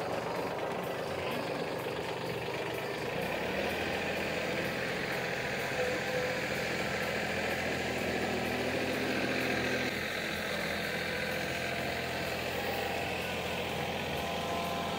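Diesel engine of an LS compact tractor running steadily while the tractor drives over snow.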